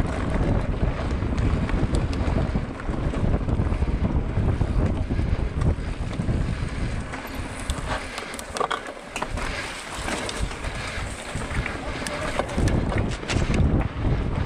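Wind rushing and buffeting over the microphone, with scattered rattles and knocks in the second half.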